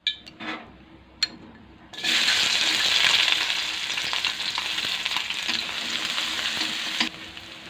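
Shallots and garlic frying in hot oil in a pan: a few light clicks, then a loud sizzle that starts about two seconds in and eases off near the end.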